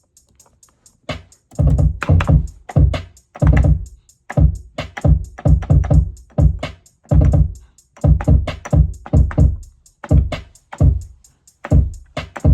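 Programmed drum-machine beat playing back: a steady run of hi-hat ticks, joined about a second and a half in by heavy, deep kick hits and snare hits in a repeating pattern, a placeholder drum kit for a new beat.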